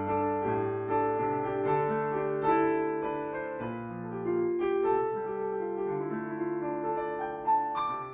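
Solo piano music: a bluesy piece of sustained chords and melody notes.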